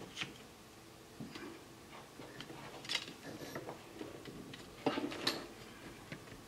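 Scattered light clicks and taps of desoldering wick and soldering tools being picked up and handled on the bench. The clearest tap comes about three seconds in, then two close together near five seconds.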